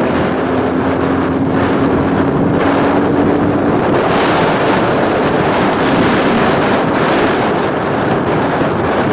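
70cc motorcycle running steadily on the move, largely buried under heavy wind noise on the microphone. A faint engine tone rises slightly over the first few seconds before it is lost in the wind.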